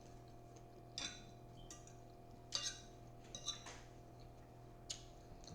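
Cutlery clinking lightly against a dish while eating salad: a handful of short, scattered clinks.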